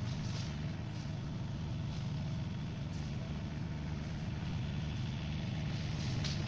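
New Holland TCE 50 tractor's diesel engine running at a steady pace while driving a flail mower, heard from a distance as an even, low drone.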